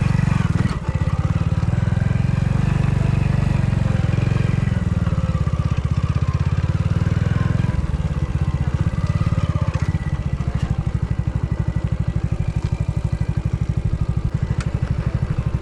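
Hero Splendor motorcycle's small single-cylinder four-stroke engine running at low speed, with a steady, rapid firing pulse that becomes more evenly spaced about halfway through.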